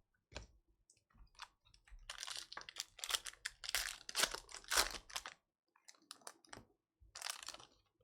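Trading card packs and cards being handled: a run of quick clicks, snaps and rustles, densest from about two to five seconds in, with a few more near the end.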